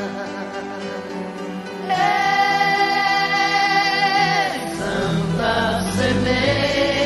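Devotional song to the Virgin Mary with choir singing. A long wavering held note swells in about two seconds in.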